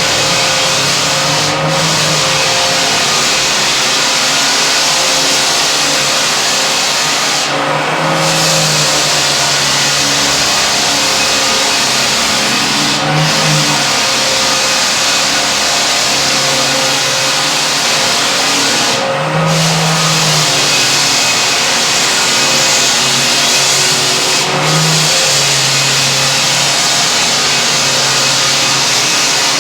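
Floor sander running steadily with its dust-extraction vacuum, a constant hiss and whine over a motor hum that shifts in pitch as the load changes. The hiss dips briefly every five or six seconds.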